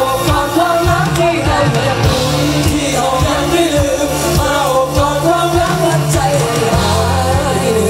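Live pop music at a concert: male voices singing into microphones over a band with a steady drum beat, played loud through the stage sound system.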